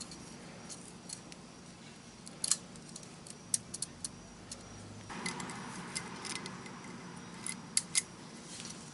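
Faint, scattered metallic clicks and ticks as a thin steel oil-ring rail is worked by hand into its groove on a new piston.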